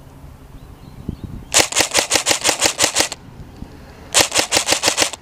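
Airsoft rifle firing two rapid strings of shots, about eight a second: a longer string of about a dozen shots, then after a short pause a shorter one of about eight.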